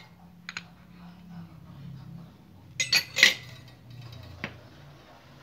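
Sharp metal clinks of a steel part knocking against a chrome socket set in a steel block: a light clink about half a second in, a quick loud cluster of clinks about three seconds in, and one more near the end, over a faint low hum.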